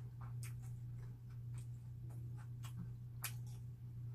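Close-miked chewing of bread: soft, irregular mouth clicks, a few a second, over a steady low hum.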